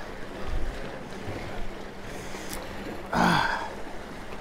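Wind buffeting the microphone over surf washing against jetty rocks. About three seconds in comes one loud, short voice sound whose pitch falls.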